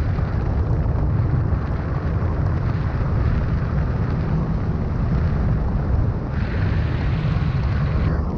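Wind buffeting a camera's microphone in flight: a steady, heavy rumble with a rushing hiss above it.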